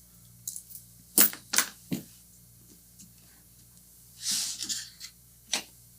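A few sharp clicks and taps from small cable parts and heat-shrink tubing being handled at a workbench, with a short breathy rush about four seconds in. A faint steady electrical hum runs underneath.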